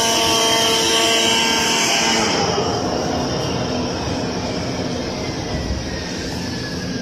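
CNC flatbed carton cutting machine running, its motors giving a steady whine of several tones. About two seconds in this changes to a noisier hum, with one whine slowly falling in pitch.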